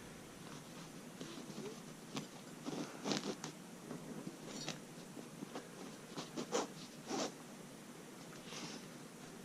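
Hand tools being handled and slid into the pockets of a tool roll: scattered light clicks and rustling scrapes, irregular and faint.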